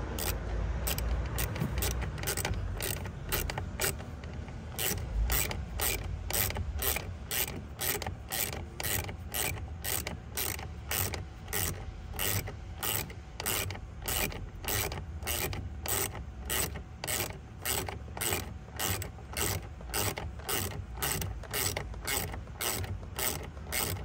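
Small hand ratchet clicking as it drives a plastic trim screw in by hand. The clicks are uneven at first, then fall into a steady rhythm of about two a second.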